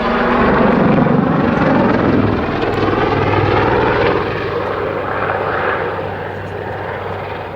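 Westland Lynx helicopter flying a backflip display manoeuvre: its rotor and engines are loudest about a second in and then slowly fade.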